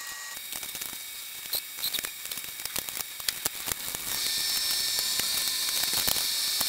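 Small plastic clicks and rattles of electrical connectors and wire-loom clips being unclipped by hand from the radiator fan shroud of a 2013–2015 Nissan Altima. A steady hiss comes in about four seconds in.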